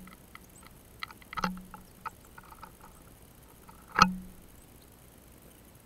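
Blue tits pecking at and landing on a wire-cage fat-ball feeder: a scatter of irregular clicks and taps, with one loud knock about four seconds in.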